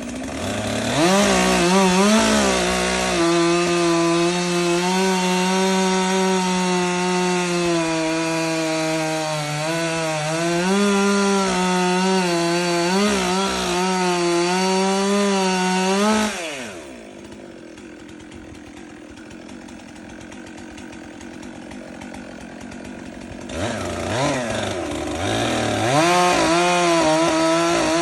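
Stihl MS 400 two-stroke chainsaw revving up and running at high speed for about fifteen seconds, its pitch dipping and wavering as it works through wood. It then drops to a quieter idle for several seconds, revs up again near the end, and falls back.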